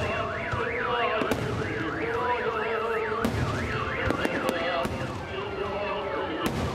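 A car alarm wailing in a fast up-and-down warble, about three sweeps a second, among the bangs of a fireworks display; the warble fades a little before the end.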